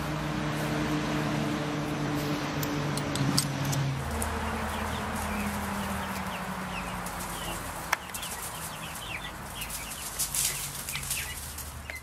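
Brahma chickens: chicks peeping in many short, high, falling cheeps, with the hen clucking. The first few seconds carry a steady low hum that drops away about four seconds in.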